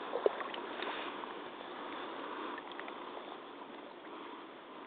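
Muddy water sloshing and lapping close to the microphone around a person's rubber hip waders as they shift in a deep mud pool, with a sharp click about a quarter second in.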